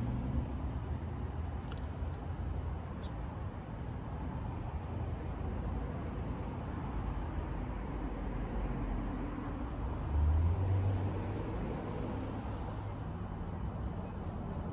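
Steady low rumble of road traffic, with one vehicle passing louder about ten seconds in.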